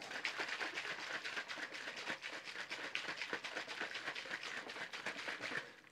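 Helimix Vortex blender bottle shaken hard by hand, water and grapefruit drink powder sloshing and splashing inside in a rapid, uneven rattle that stops abruptly near the end, mixing the drink.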